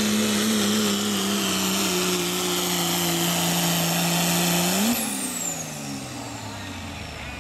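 Second-generation Dodge Ram's turbocharged Cummins diesel running flat out under load, pulling a weight-transfer sled, its pitch dipping slightly about two seconds in. About five seconds in it rises briefly, then the throttle is lifted at the end of the pull: the engine note falls steadily away and a high whistle glides down with it.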